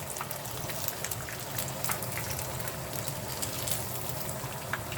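Sesame-coated tuna pieces deep-frying in hot oil: a steady sizzle with many small crackles and pops.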